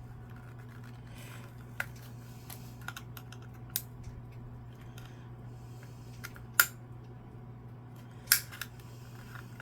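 Scattered small plastic clicks and taps as an Xbox One controller's shell and parts are handled and worked apart with tools, a sharper click a little past halfway, over a steady low hum.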